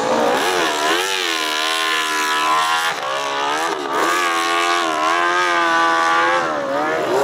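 Open-class (700cc and up) hillclimb motorcycle engine revving hard under load up a steep dirt hill, its pitch dropping and climbing again several times.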